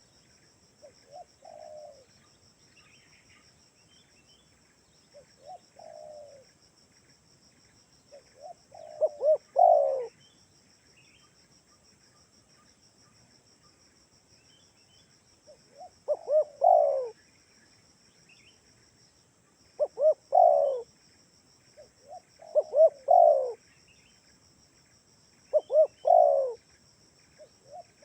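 Spotted dove (tekukur) cooing: repeated phrases of several low coos, a few faint ones early on, then louder phrases every three to four seconds.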